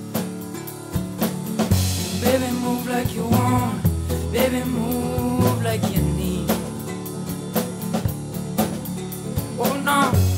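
Background music: a song with a sung vocal over a steady drum beat.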